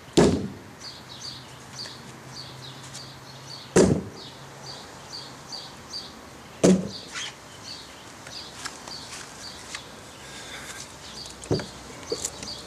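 Glock field knives thrown into a wooden board, each sticking with a sharp thunk: three hits about three seconds apart. Near the end there are two lighter knocks as a stuck knife is gripped and worked loose. A bird chirps about three times a second in the background.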